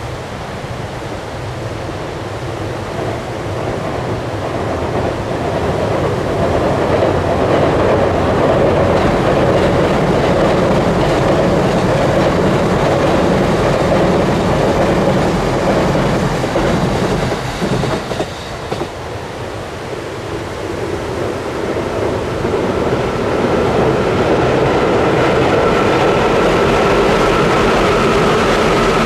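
Electric passenger trains crossing a steel girder railway bridge, a loud rumble with clickety-clack of wheels on the rail joints. The first train's noise builds, dips briefly past the halfway point, then a second train follows with a steady motor whine over the rumble.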